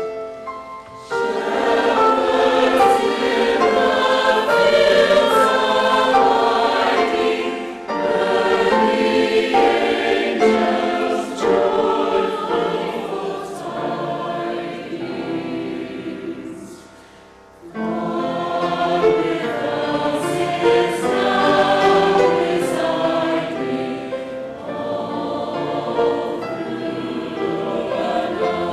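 Mixed choir of men's and women's voices singing together in sustained phrases, with a brief break about a second in and a longer breath-pause around the middle.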